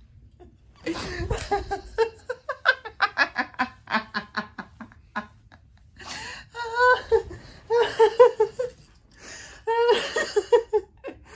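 A woman laughing: a quick run of giggles, then several longer bursts of laughter.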